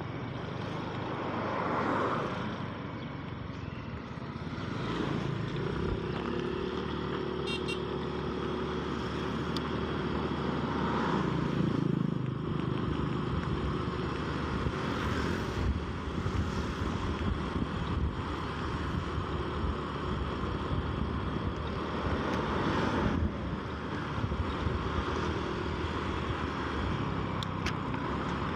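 Motorcycle running along a road while being ridden, with steady wind and road noise. The sound swells briefly a few times.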